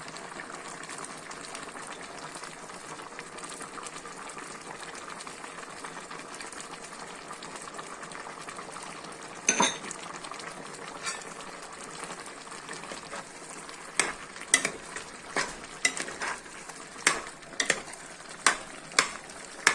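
Zirvak for plov (beef in wine and water with spices) simmering in a pot with a steady bubbling sizzle. A utensil knocks against the pot once about ten seconds in, then clicks and knocks repeatedly through the second half as the zirvak is stirred.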